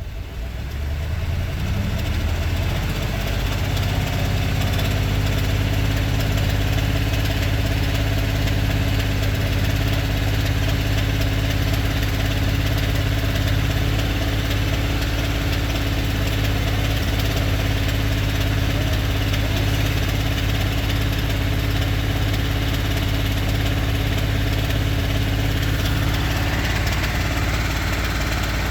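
Idling 7.3-litre gasoline V8 of a 2022 Ford F-250, running steadily, with a ticking/knocking that the owner suspects comes from bad lifters.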